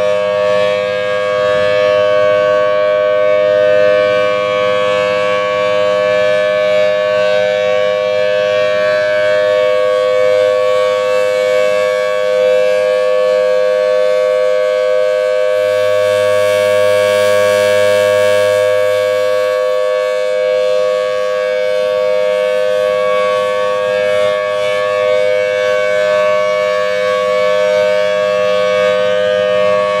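Federal Signal Thunderbolt 1000T siren, fitted with a dual-tone chopper, sounding a steady alert as two held tones at once while its horn rotates. The sound brightens briefly about halfway through as the horn swings to face this way.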